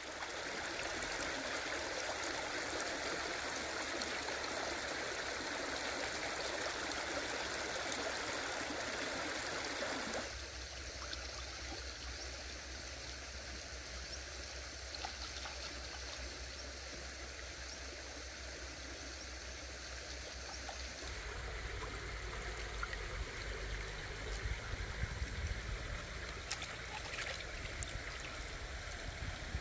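Shallow rocky stream running: a steady rush and trickle of water over stones. Its sound changes abruptly twice, about a third of the way in and again past two-thirds, and a few light clicks come near the end.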